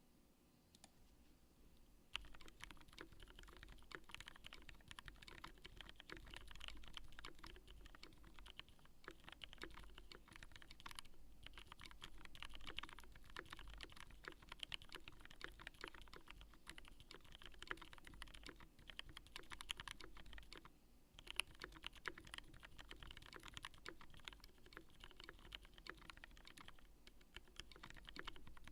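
Typing on a TINA-C custom mechanical keyboard with linear Gateron Black switch stems on 67g springs in Zealio housings: a fast, continuous run of keystroke clacks. It starts about two seconds in, with a few short pauses.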